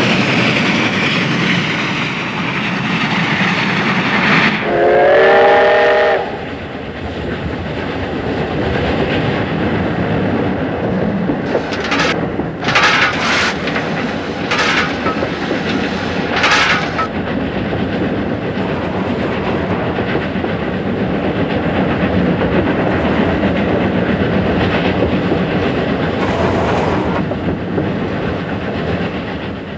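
JNR Class C62 steam locomotive running with a train, a steady rumble of the engine and wheels. About five seconds in, its steam whistle sounds one loud blast of about a second and a half, and about halfway through there are four short hissing bursts.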